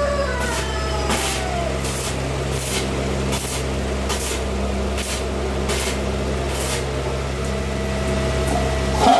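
Electric welding machine running with a steady mains hum, overlaid by a hiss that swells and fades about every 0.8 s. There is a short louder burst near the end.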